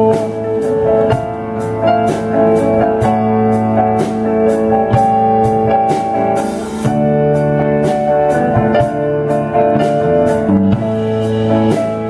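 Live amateur rock band playing: electric guitar, bass guitar, Yamaha keyboard and Ludwig drum kit, with drum strokes keeping a steady beat under held notes.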